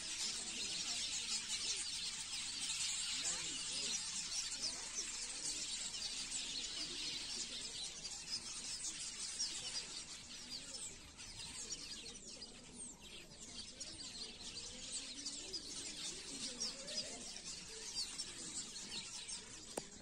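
A colony of weaver birds chattering: a dense, unbroken mass of many short high chirps from a nesting tree, thinning a little around the middle.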